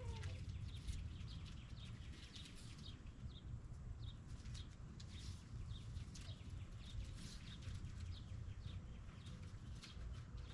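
Small birds chirping: many short, falling chirps repeated irregularly, over a steady low rumble.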